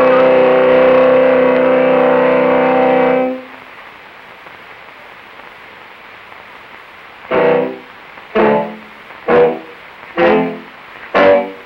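Instrumental music: a loud held chord lasts about three seconds and stops. After a pause of about four seconds, short separate notes or chords follow, about one a second.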